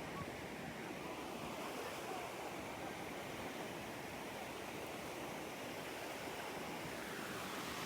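Ocean surf washing on a beach, a steady wash of wave noise that cuts off abruptly at the end.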